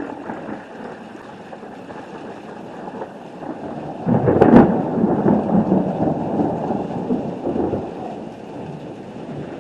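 Thunder from a lightning storm: a low steady rumble, then a sudden loud crack about four seconds in that rumbles on for several seconds and slowly fades.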